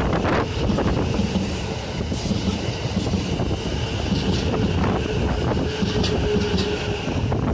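JR East E353 series limited express electric train passing close by: a loud, steady rumble of wheels on rail with repeated clicks as the wheels cross the rail joints.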